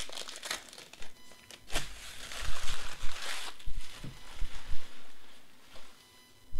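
Foil wrapper of a Panini Select baseball card pack being torn open and crinkled: a run of crackling and rustling that dies down after about three and a half seconds.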